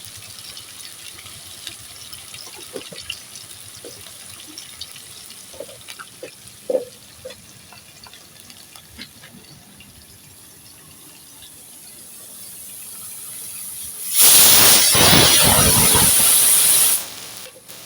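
Spices sizzling gently in oil in a kadai, with a few light spatula taps. About fourteen seconds in, water is poured into the hot pan and it hisses loudly for about three seconds, then stops abruptly.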